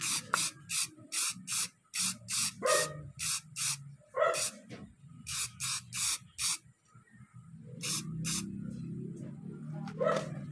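Aerosol spray-paint can giving many short bursts of spray, several a second in runs with brief pauses, as a first black top coat goes onto a mountain-bike brake part.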